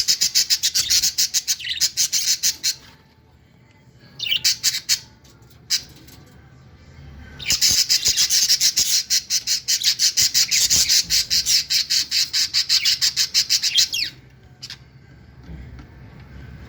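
Budgerigars squawking in fast rasping runs of many notes a second: a run of about three seconds at the start, a short one around four seconds in, and a long run of about six seconds from seven and a half seconds in.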